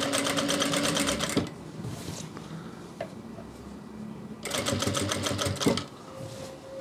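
Sewing machine stitching through kurta fabric in two short runs of rapid, evenly spaced stitches. The first stops about a second and a half in, and the second starts about four and a half seconds in and lasts just over a second.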